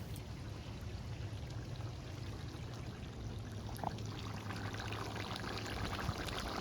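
Plov base (zirvak) simmering in a cast-iron kazan over a fire: a steady bubbling hiss with fine crackles, growing busier in the second half.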